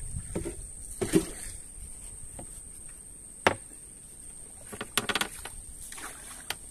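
Scattered wooden knocks and clunks aboard a small wooden boat, the loudest about three and a half seconds in and a quick run of them around five seconds, over a steady high-pitched hum.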